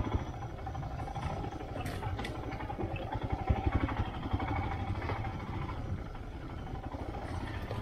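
Motorcycle engine running as it is ridden along a rough, unpaved track, a steady low rumble throughout.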